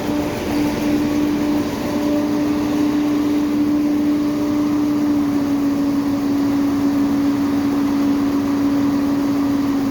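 A train's diesel engine running with a steady droning tone that sinks slightly in pitch toward the end, over a broad rumbling noise.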